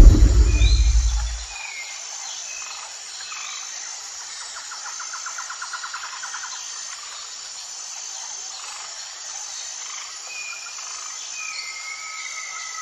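A deep, loud rumble dies away in the first second and a half, giving way to a steady insect chorus of crickets chirping in a regular pattern, with scattered bird chirps, a fast trill and a few whistled glides.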